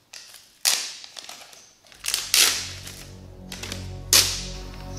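Three loud swishes of notebook pages being turned, about a second and a half apart. Background music comes in about two seconds in.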